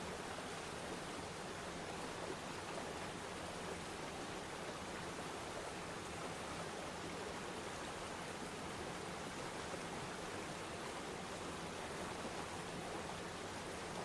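Waterfall and shallow river rapids rushing, a steady, unbroken rush of water.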